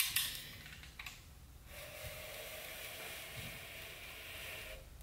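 Crankshaft of an LQ4 V8 short block turned by hand, the freshly installed pistons and rings sliding in their oiled bores with a steady scraping rush for about three seconds. A few light clicks come in the first second.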